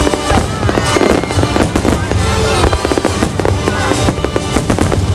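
Aerial fireworks shells bursting in rapid succession, a dense run of bangs and crackling, with music playing underneath.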